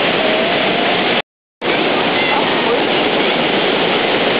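River floodwater rushing and churning over a weir, a loud steady rush of water, broken about a second in by a brief dead-silent gap where the recording cuts.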